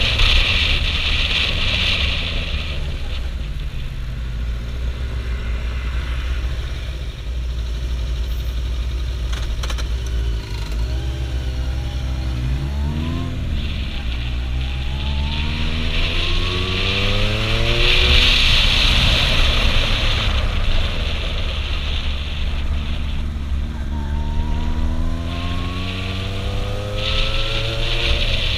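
Kawasaki Zephyr 750's air-cooled inline-four engine under way, its pitch climbing in three long rising sweeps as it accelerates through the gears, over a steady low rumble. Wind rushes over the microphone, coming and going.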